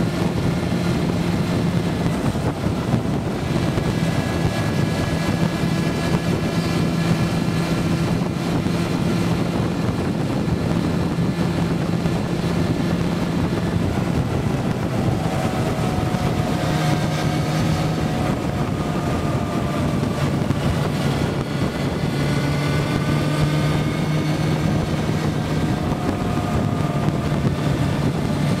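Motorcycle engine running at speed with wind rushing over the microphone, the engine note shifting up and down in steps several times.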